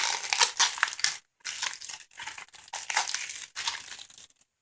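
Plastic wrapping being crumpled and handled, an irregular crinkling crackle that stops shortly before the end.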